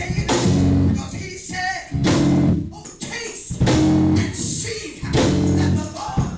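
Loud live band music with bass and drums, heavy full chords coming in bursts about every second and a half.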